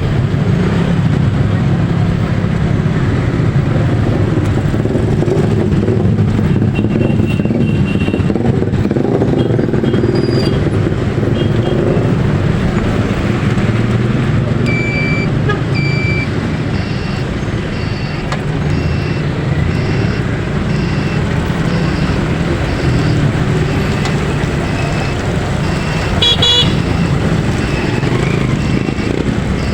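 Road vehicle running steadily on the move, with engine and road noise. Two short horn toots come about halfway through, followed by a regular beeping about once a second for roughly ten seconds, and another short horn-like tone near the end.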